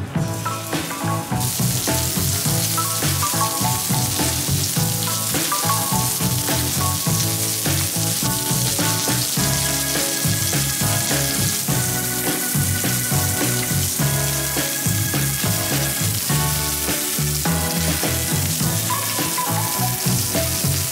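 Eggplant-and-minced-meat sandwiches sizzling as they fry in oil in a cast iron skillet. The sizzle starts about a second and a half in and holds steady, over background music.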